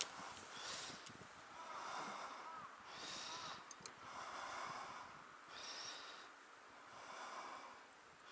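Soft breathing close to the microphone, one breath sound about every second and a half, with two faint clicks near the middle.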